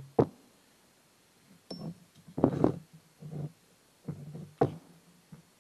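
Clicks and knocks of the hydraulic line fitting being worked off a plastic clutch master cylinder held in a bench vise: a sharp click just after the start, a cluster of knocks in the middle, and another sharp click near the end.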